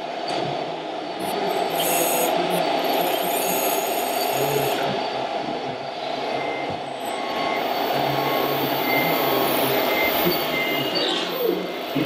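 Radio-controlled model Liebherr 960 hydraulic excavator working, a steady mechanical hum and whir, with a higher whine from about two to five seconds in.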